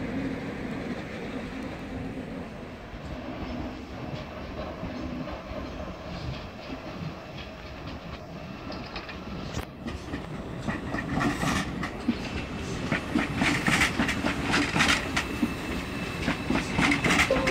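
ICE high-speed train rolling through the tracks. A steady rumble turns into rapid clattering of the wheels over the points and rail joints, which grows louder in the second half.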